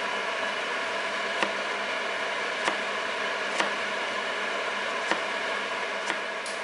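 Kitchen knife chopping garlic cloves on a plastic cutting board: five separate sharp knocks of the blade, about a second apart, over a steady background hiss.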